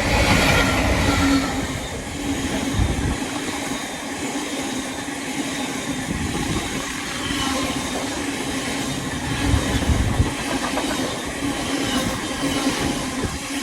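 A freight train passing, its wheels rumbling over the rails, louder in the first second or two and again about ten seconds in.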